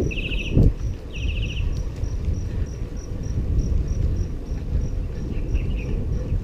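Wind and road rumble from riding a bicycle on a concrete road, with a thump just over half a second in. A high insect chirp repeats about three times a second, and two short high trills come in the first two seconds.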